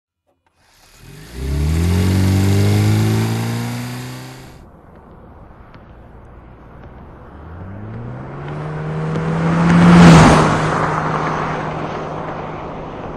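Toyota Prius accelerating, its motor whine rising in pitch and then levelling off, twice: once about a second in, and again from about seven seconds. The second time it swells to a loud rush near ten seconds in, as the car comes close.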